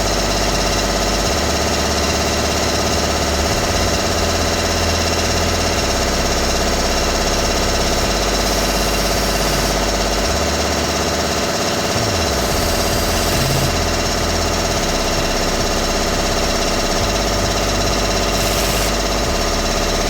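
Makita hammer drill running steadily under power.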